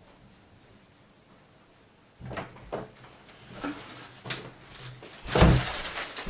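Quiet room tone, then from about two seconds in a series of knocks and clatters, with one heavy thump near the end.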